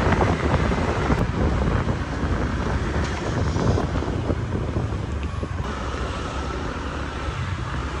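Wind rushing over the microphone on a moving motor scooter, over the low rumble of the engine and the road. The noise eases off a little towards the end.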